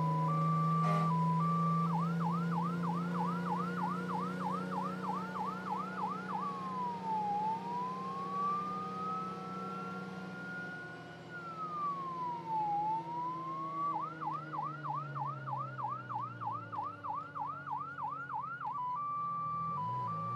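Electronic emergency-vehicle siren cycling through its modes. It opens with a two-note hi-lo, switches about 2 s in to a fast yelp of roughly three sweeps a second, and slides into a slow rising and falling wail near the middle. It returns to the yelp about 14 s in and to the hi-lo near the end, over a low steady hum.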